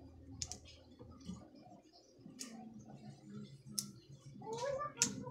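Metal pliers clicking on the wire connections of a dryer motor's capacitor leads: four sharp clicks spread over a few seconds, with a few smaller ones between.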